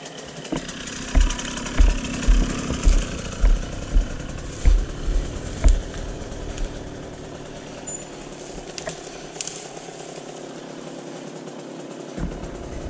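KTM 300 two-stroke enduro motorcycle running at low revs while riding a rough trail. In the first half a string of heavy low thumps comes about every half second, then the sound settles into a steadier run.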